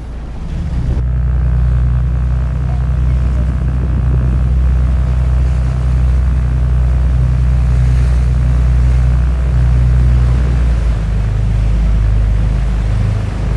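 Sightseeing boat's engine running with a loud, steady low drone, heard on board; it grows louder about a second in.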